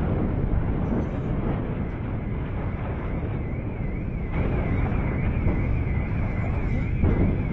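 A steady low rumble with wind buffeting the microphone, and a faint warbling high tone that comes in about halfway through.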